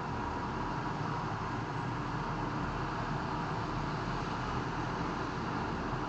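Steady road traffic noise from cars, vans and buses moving through a large city intersection, an even rumble with no single vehicle standing out.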